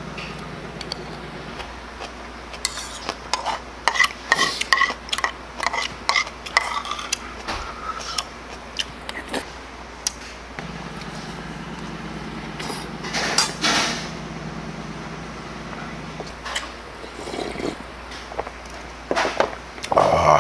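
Metal spoon clinking and scraping against a stainless steel bowl while stirring rice, a run of quick irregular taps, a few of them ringing briefly.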